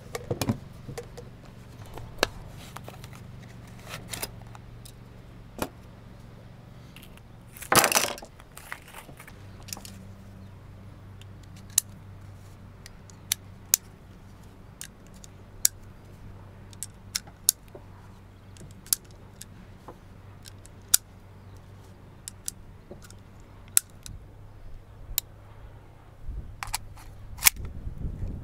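Handling of an APS Stechkin machine pistol: light metallic clicks and rattles, with one louder clatter about eight seconds in. This is followed by a run of sharp clicks, roughly one a second, as 9x18mm Makarov cartridges are pressed one by one into its magazine.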